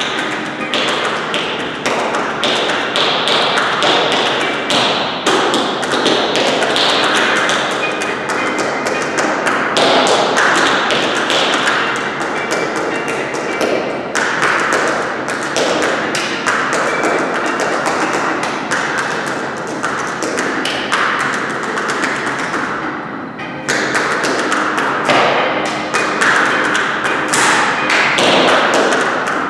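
Hard-soled dance shoes striking a wooden floor in rapid rhythmic taps and stamps of dance footwork, with music playing underneath. The taps pause briefly about three-quarters of the way through.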